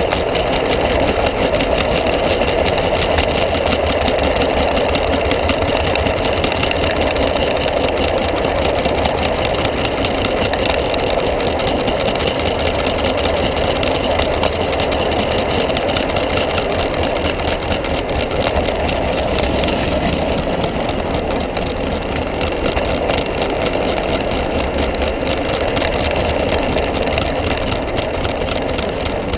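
Garden-scale model train rolling along its track, heard from a camera riding on one of its open wagons: a steady, close rattle of wheels on the rails.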